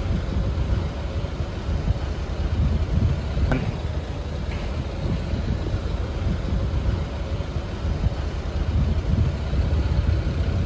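Steady low engine rumble of vehicles boarding a car ferry, with a faint steady machine hum and a single click about three and a half seconds in.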